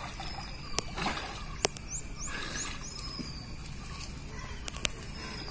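Light water splashing from a swimmer diving and surfacing in still water. About two seconds in comes a quick run of four short falling bird chirps, and a few sharp clicks occur throughout.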